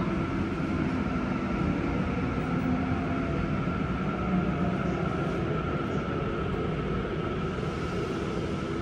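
Interior running noise of a Tokyo Metro 9000 series subway car: the Mitsubishi IGBT-VVVF inverter and traction motors whine in steady tones over the low rumble of wheels on rail as the train runs into a station, growing slightly quieter toward the end.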